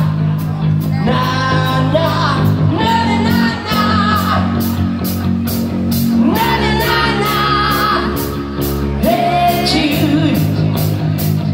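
Live rock band playing: sung vocals over electric bass, electric guitar and drums, with cymbals struck on a steady beat. The low chord underneath changes about halfway through.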